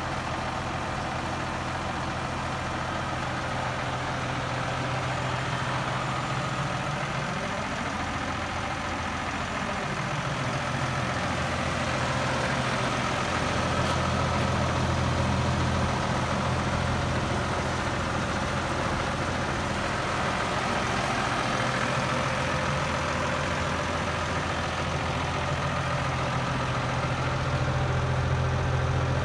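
Case Puma 230 CVX tractor's six-cylinder diesel engine idling steadily, a low even hum.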